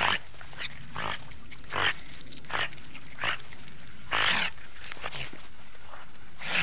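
Otters making short calls repeated roughly once a second, with one longer, louder call a little past the middle.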